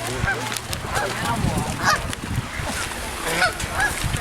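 A flock of birds calling, many short overlapping calls a few each second, over low rumbling wind or handling noise.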